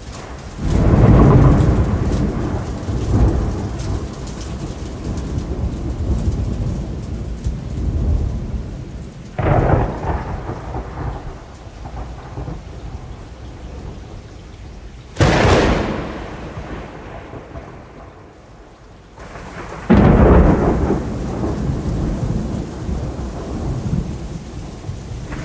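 Thunderstorm: steady heavy rain with four claps of thunder. A long rumble starts about a second in, a shorter clap comes near ten seconds, a sharp crack around fifteen seconds, and another long rumble around twenty seconds.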